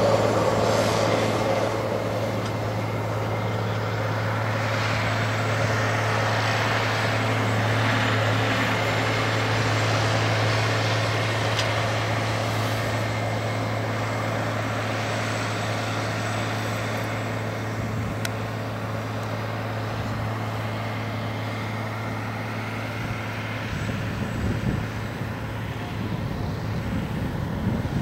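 Farm tractor engine running steadily as it pulls the laser plane, a constant low drone over an even rushing noise, with some low irregular rumbling near the end.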